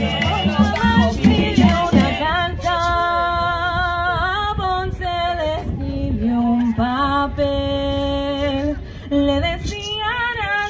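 Hand-played barrel drums keep up a fast rhythm for about the first two seconds, then stop, leaving a group of women and men singing together unaccompanied in long held notes, with a short break about nine seconds in.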